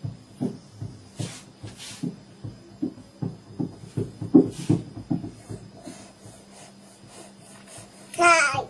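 Live experimental sound performance: irregular soft low knocks and short hissing bursts, then a loud wavering pitched tone near the end.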